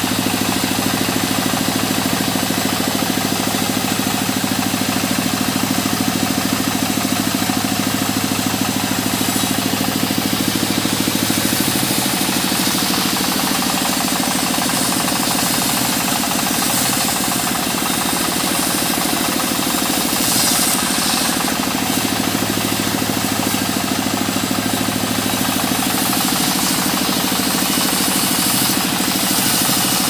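Sawmill saw ripping a long mahogany beam: the blade cutting steadily through the wood over the machine's running hum, with a low drone that drops out about twelve seconds in and comes back for a few seconds later on.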